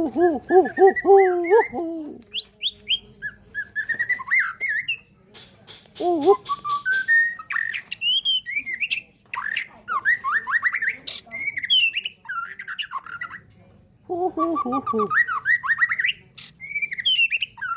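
Songbird singing a long, varied song of gliding whistled phrases, some low and full, others high and quick, broken by short pauses and a few harsher notes.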